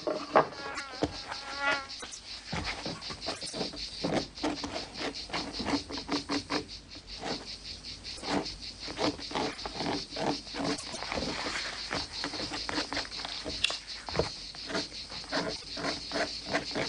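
Steady high-pitched insect chirring with many irregular clicks.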